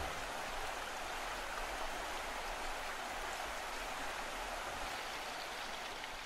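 Flowing river water: a steady, even rush.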